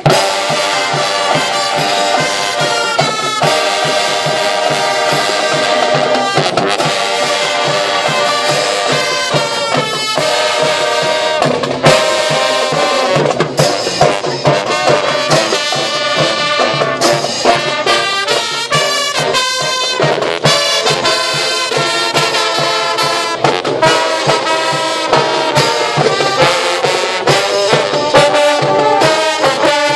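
Marching band of brass and drums playing: held brass chords, with sousaphones in the low end, over a steady beat of marching drums.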